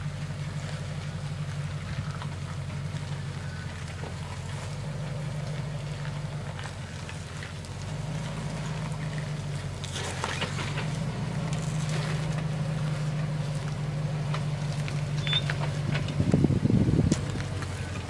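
Land Rover Discovery engine running steadily at low revs as the 4x4 crawls over rock ledges. A few faint knocks are heard, and it grows louder near the end.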